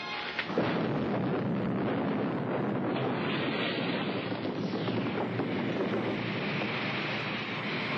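A sudden bang about half a second in, then a steady rushing roar from an oil well blowing out.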